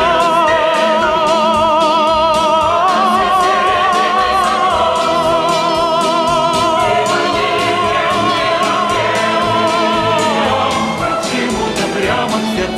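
Background music: a song with long held, wavering melody notes, likely a wordless vocal line between verses, over a steady beat.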